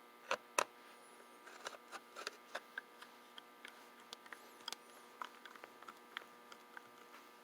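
Small clicks and taps of an antique mortise lock's parts being handled and fitted back together, two sharper knocks near the start, over a steady electrical hum.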